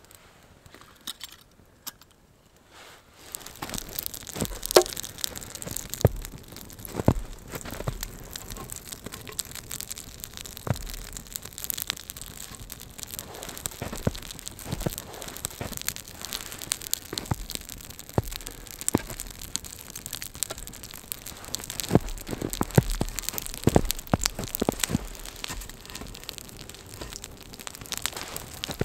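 Wood campfire crackling, with many sharp pops and snaps, starting about three seconds in after a near-quiet opening.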